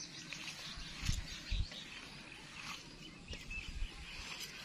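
A hand squeezing and kneading a raw minced-meat mixture of onion, tomato and spices in a steel bowl, giving soft irregular squishing and crackling, with two low thumps about a second and a second and a half in.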